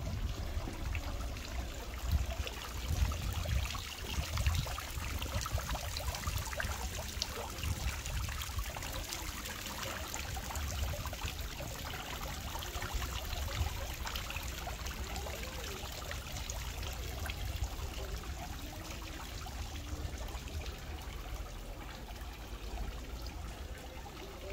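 Steady trickling and splashing of running water, with a low rumble that is heavier in the first few seconds and then eases.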